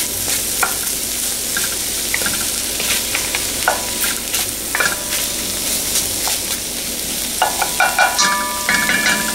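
Sliced onions, carrots, celery and garlic sizzling steadily in butter in an enamelled Dutch oven, while a spoon stirs them. The spoon scrapes and squeaks against the pot now and then, most densely near the end.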